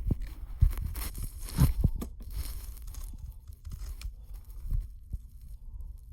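Rustling with several soft thumps and knocks, the strongest about a second and a half in.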